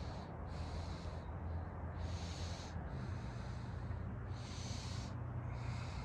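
Soft breaths close to the microphone, swelling and fading every second or two, over a steady outdoor hiss and low rumble.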